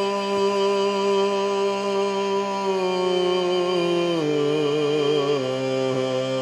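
Shruti box, a small keyless Indian reed box pumped by hand, droning a sustained chord. A voice sings along over the drone in a slow falling line that wavers in the middle and settles on a lower note about a second before the end.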